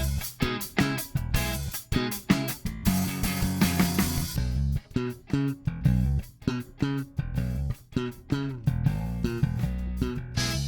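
Lakland Skyline 55-02 five-string electric bass with active electronics, played in a quick run of separate plucked notes with sharp attacks. About three seconds in, a few notes are left to ring.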